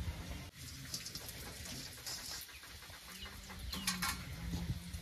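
Chickens clucking, with short high bird calls near the end.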